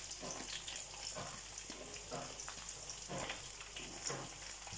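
Hot oil sizzling and crackling in a clay pot as chopped shallots are pushed in from a cutting board, with scattered small pops and clicks.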